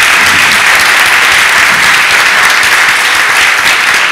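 A congregation applauding: many people clapping steadily.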